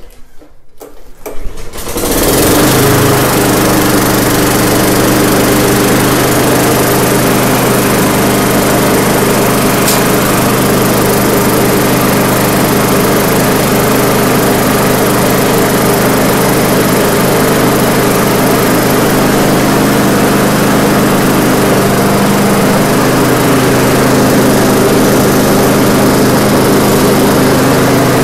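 Tecumseh VLV55 single-cylinder four-stroke mower engine starting about two seconds in and then running steadily. It is running on a newly fitted clone carburetor, which the owner blames for its earlier failure to run.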